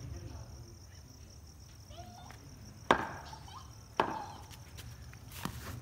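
Two sharp knocks about a second apart, around three and four seconds in, from a cricket bat and ball being played. A faint steady low hum runs underneath.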